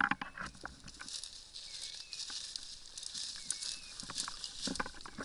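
Leaves and twigs rustling and crackling as someone pushes through dense undergrowth, with sharper snaps of breaking twigs in the first second, then a continuous brushy scraping of foliage.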